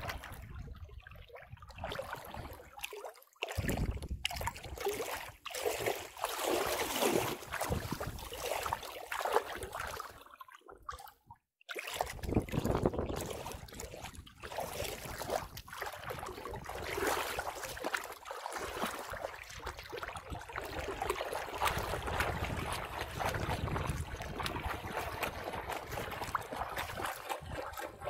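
Shallow water splashing and sloshing as a small dog wades and paddles through it, irregular throughout, with two brief quiet breaks, one a few seconds in and one near the middle.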